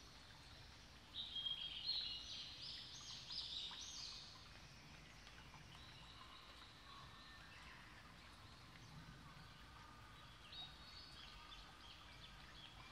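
Faint birdsong: a run of short high chirping notes for a few seconds about a second in, then quieter calls again near the end, over a low steady background noise.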